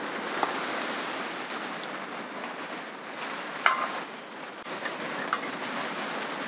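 Heavy rain falling steadily on a dome shelter tent's fabric, heard from inside. About two-thirds through, a metal utensil clinks sharply against a metal pot or bowl, with a brief ring.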